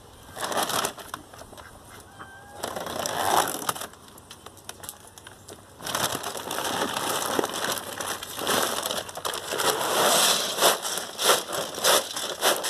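A large paper feed bag crinkling and rustling as it is handled over a galvanized metal feed can, in short bursts at first and then a denser, steady crackle full of small clicks from about six seconds in.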